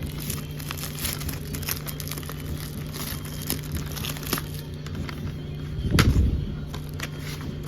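Plastic DVD case being handled and opened: scattered small clicks and crinkles, with one louder knock about six seconds in, over a steady low hum.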